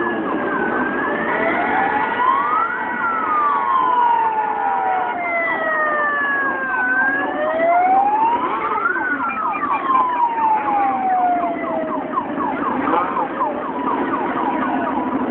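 A siren wailing, its pitch rising and falling slowly, with peaks about six seconds apart, over the engines of a stream of motorcycles riding past.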